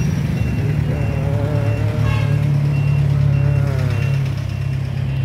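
Motor vehicle engines running in street traffic, a steady low engine hum, with a high electronic beep repeating about every two-thirds of a second.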